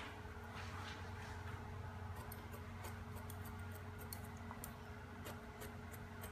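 Hair-cutting scissors snipping short hair, scissor over comb: a quick, uneven run of small crisp snips that picks up about two seconds in.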